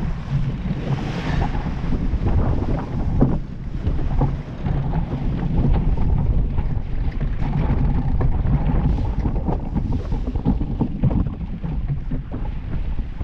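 Wind buffeting the microphone in a steady low rumble, over water rushing and churning past the hull of a Mills 41 racing sailboat under sail, with irregular crackles of spray.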